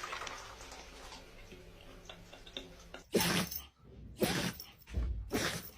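An animal sneezing three times in quick succession, each sneeze a short, sharp burst about a second apart, starting about three seconds in.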